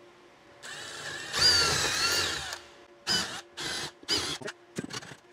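Cordless drill driving a screw through a metal wall-mount bracket into a wooden wall. A long run first, its motor pitch rising and dipping under load, then three short trigger pulses and a few quicker ones near the end.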